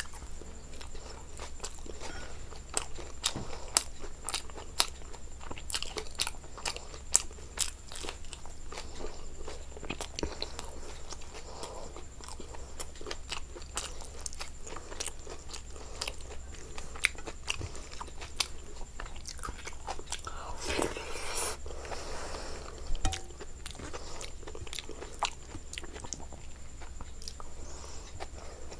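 Close-miked chewing and crunching of food, with many sharp crisp bite clicks throughout and a longer noisy chewing stretch a little over two-thirds of the way through.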